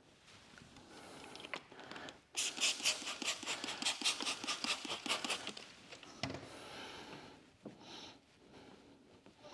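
Wet paint protection film being worked down on a car's hood: a quick run of rhythmic swishing strokes, about five a second, from about two seconds in until past the middle, with softer rubbing around it and a dull thud soon after.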